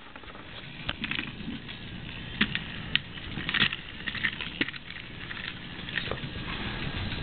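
Scattered light clicks and taps, about half a dozen, over a steady low hiss.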